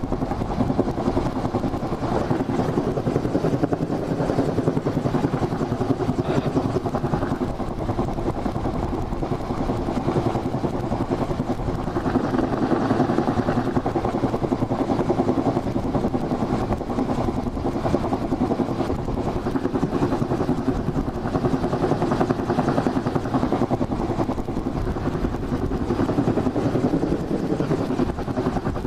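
Search-and-rescue helicopter hovering overhead: a steady, loud rotor and engine noise with a fast, even rotor chop that does not change.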